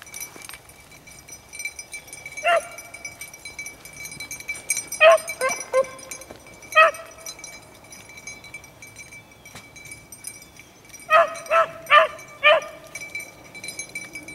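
Rabbit-hunting beagles baying on the trail, in short separate bays: one, then a few together, then four in quick succession near the end.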